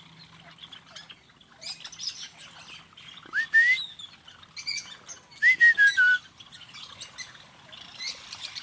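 A flock of birds at a feeding tray chirping and calling, with sharp squawk-like calls scattered throughout. Two loud whistled calls stand out: one rising about three and a half seconds in, one stepping down in pitch about five and a half seconds in.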